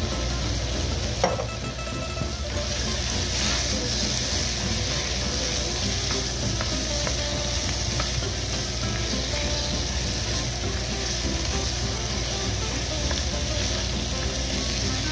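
Diced potatoes, mushrooms and celery sautéing in butter in a cast iron pot: a steady sizzle, louder from about three seconds in, while a wooden spoon stirs them. A sharp knock about a second in.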